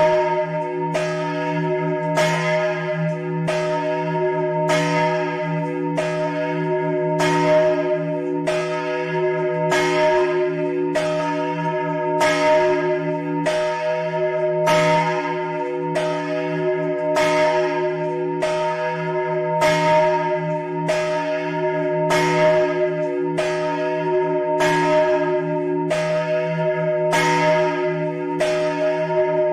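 The large church bell, tuned to E-flat and recast by Capanni in 1952, swung by hand rope in the Italian fast-swinging style. Its clapper strikes about once a second, each stroke ringing on into the next, in a steady funeral peal of the single big bell.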